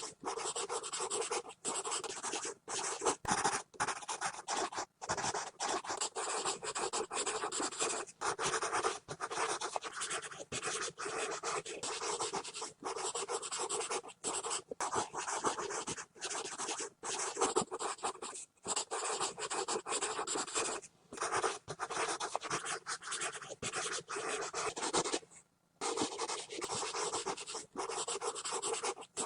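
Pencil scribbling fast on paper: dense scratchy strokes in quick succession, with brief pauses between bursts and one longer pause near the end.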